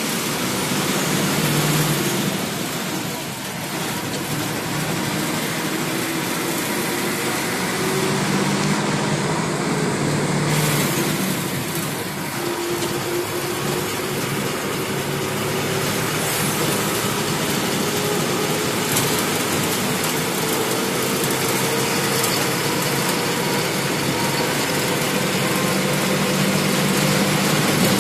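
Bus engine running at highway speed, heard from the driver's cabin over a steady rush of road and wind noise. About halfway through, the engine note begins a slow, steady rise in pitch as the bus picks up speed.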